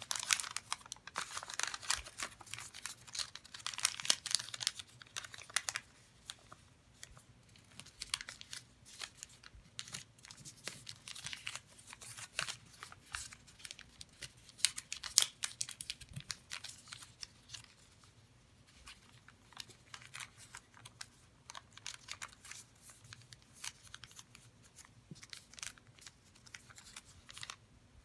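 A sheet of origami paper crinkling and rustling as it is folded and creased by hand, in irregular crackles that are busiest in the first six seconds and sparser after, with one sharp crackle about halfway through.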